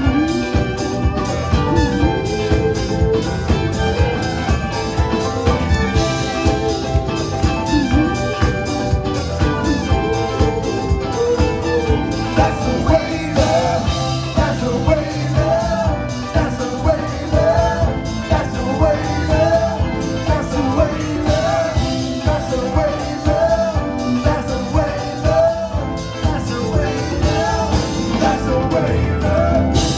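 A live band playing a soul-pop song, with singing, drums, electric guitar, violin, trumpet and keyboards.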